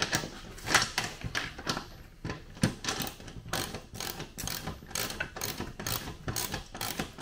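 Ratchet spanner clicking in short runs of quick clicks as it runs a nylon-insert lock nut down a bolt.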